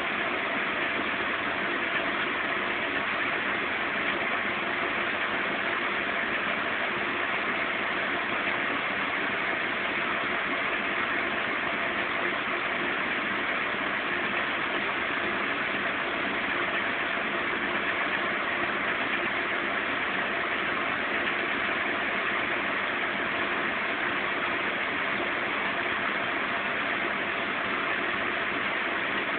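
Zanussi Z 630 front-loading washing machine spinning steadily at speed, a constant motor and drum whine with a hum under it, during its long final spin at 550 rpm.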